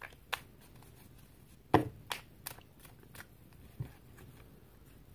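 Tarot cards being shuffled and drawn, with a handful of sharp card taps and slaps on a table, the loudest a little under two seconds in.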